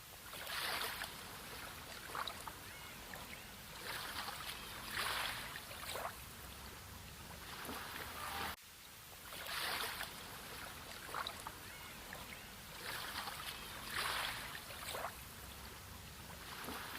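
Sea water washing and lapping in soft swells a few seconds apart. The recording loops about every nine seconds, with a brief dropout at the join about halfway through.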